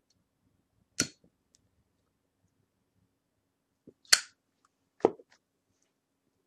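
Three sharp knocks: one about a second in, a louder one about four seconds in, and a duller one a second later.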